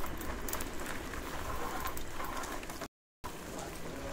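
Street ambience heard while cycling through a city lane: a steady low rumble with scattered small clicks. About three seconds in, it drops out to total silence for a split second.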